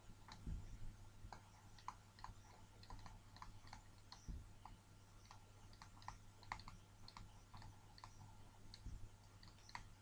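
Faint, irregular light clicks and taps from handwriting being entered on a computer, over a low steady hum.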